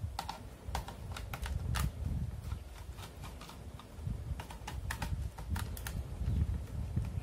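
Irregular small clicks and taps of a screwdriver and fingers working on the plastic casing of an electric mosquito swatter as its screws are taken out.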